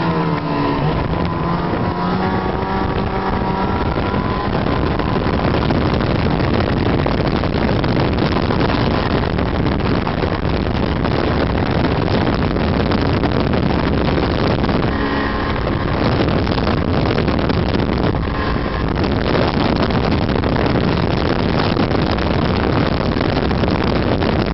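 Snowmobile engine and track running under way over a groomed trail, a loud steady rush. The engine's pitch climbs over the first few seconds as the machine accelerates, then holds steady with brief changes in revs about two-thirds of the way through.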